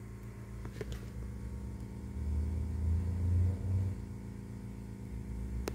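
A low rumble swells about two seconds in and fades after a couple of seconds, over a steady low hum, with a faint click early on and a sharper click near the end.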